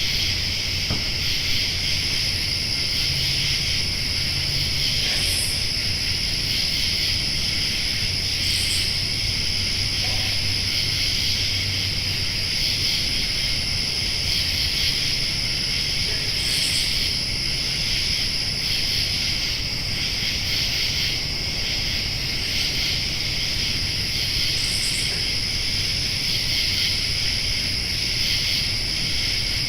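Night insect chorus: a dense, steady trilling of crickets and other insects, over a thin continuous high whine, with a brief higher chirp every few seconds.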